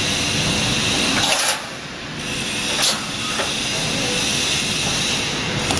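Automatic steel reinforcing-mesh welding machine running: a steady mechanical noise and hiss, broken by short sharp bursts as the row of resistance-welding electrodes fires, about a second and a half in, near three seconds, and near the end.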